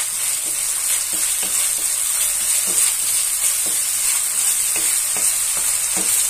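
Sliced onion and green capsicum sizzling in hot oil in a kadai, stirred with a wooden spatula that scrapes across the pan in short irregular strokes about once or twice a second over a steady sizzle.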